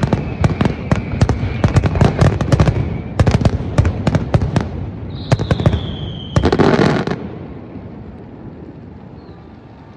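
Aerial fireworks display: rapid, overlapping bangs and crackling shell bursts, then a falling whistle about five seconds in. One last dense burst follows about a second later, and after it the sound dies away.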